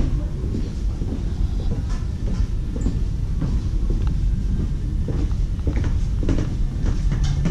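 Footsteps on a wooden plank walkway, irregular knocks over a steady low rumble.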